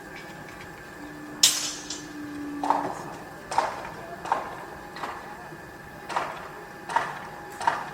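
Construction site noise: irregular knocks and clanks, about seven in a few seconds, the loudest a sharp crack about a second and a half in, over a steady machine hum with a low drone held for about two seconds.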